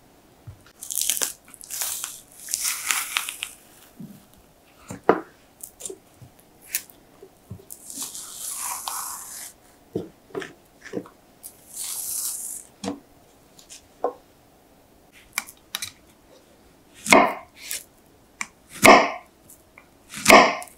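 A banana is pulled off the bunch and peeled by hand: several bursts of soft tearing as the peel strips come away, with small taps on a wooden board. Near the end come three short, louder sounds about a second and a half apart.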